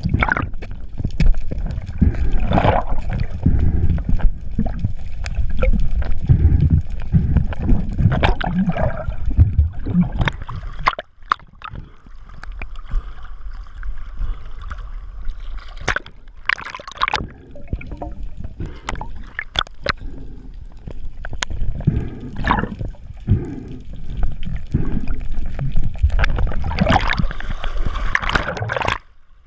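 Water sloshing and gurgling around a diving camera, with heavy low rumbling and scattered sharp clicks. It eases off about a third of the way in and builds again near the end.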